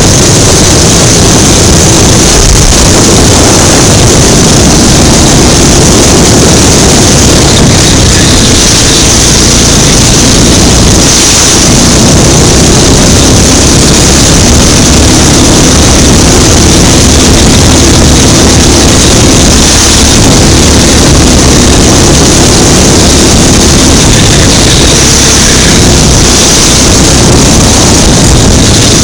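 Go-kart engine running at racing speed, heard from a microphone mounted on the kart, loud and steady with no let-up.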